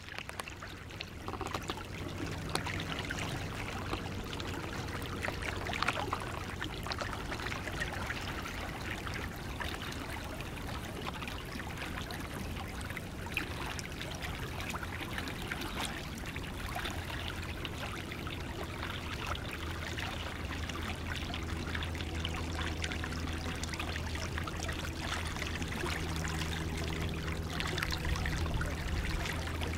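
Shallow creek water running and trickling steadily past and under ice shelves hung with icicles, with small splashes now and then.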